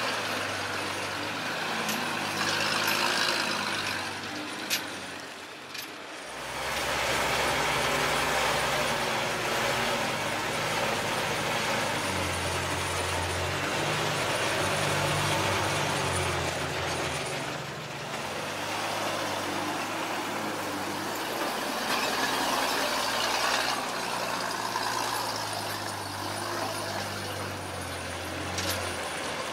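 Zil-164 dump truck's straight-six petrol engine running as the truck drives, its note rising and falling, with a few sharp knocks.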